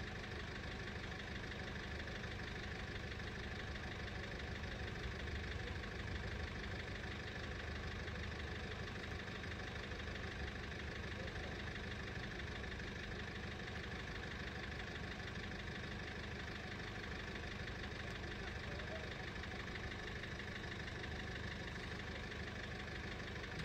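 Level crossing warning bell ringing steadily, over the low steady rumble of an idling engine.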